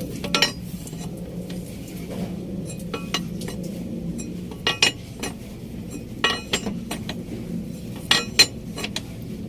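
Metal tools and parts clinking against each other, several sharp separate clinks, a pair of them the loudest near the end, over a steady low hum.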